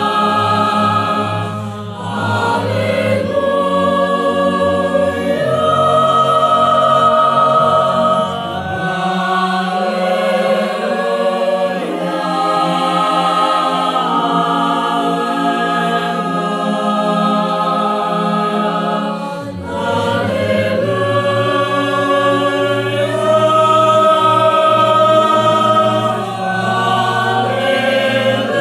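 Mixed four-part choir singing a sacred song in harmony. The lowest voices drop out from about nine seconds in and come back in at about twenty seconds.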